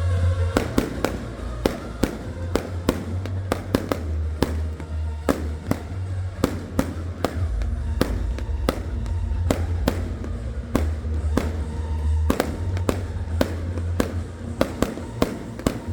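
Fireworks going off in rapid, irregular succession, several sharp bangs a second, over loud music with a heavy bass.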